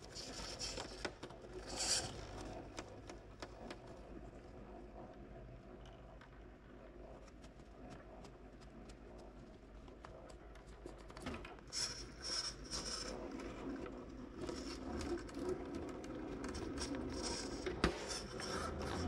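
Redcat Ascent RC rock crawler clambering over rocks and logs: its tyres and chassis scrape, scratch and click against the rock in a string of small knocks over a faint steady hum. Louder bursts of scraping come about two seconds in and again from about twelve seconds, with a sharp click near the end.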